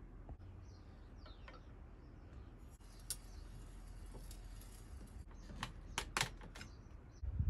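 A few sharp, irregular metallic clicks and taps from a wrench working on a bicycle crankset, most of them bunched together a little past the middle, over quiet room tone.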